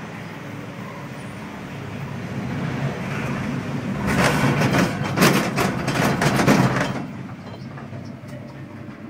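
Heard from inside a Poma four-person gondola cabin: a steady low hum and rumble from the moving cabin on its cable. About four seconds in comes a burst of loud clattering clicks lasting some three seconds as the cabin's grip rolls over the sheaves of a lift tower, then it settles back to a quieter rumble.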